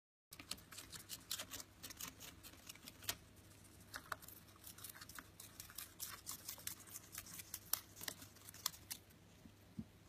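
Lutino rosy-faced lovebird biting and cutting paper into strips with its beak: a rapid, irregular run of crisp clicks and crunches that stops about nine seconds in, over a faint steady hum.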